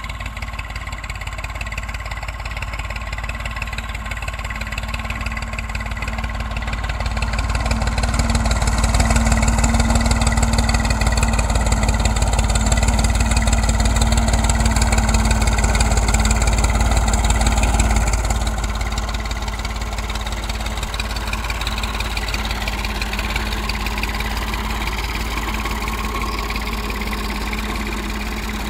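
A farm tractor's diesel engine runs steadily while the tractor pulls a tined row cultivator between cotton rows. The engine grows louder over several seconds as the tractor comes close, then drops back suddenly about eighteen seconds in and carries on at a lower level.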